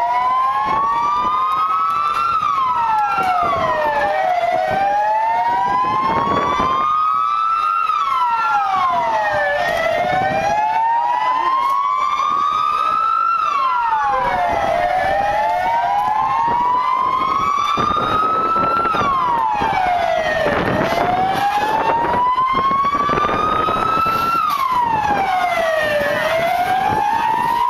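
Two or more police van sirens wailing out of step with each other, each rising slowly for about four seconds, then dropping quickly and starting again, every five to six seconds.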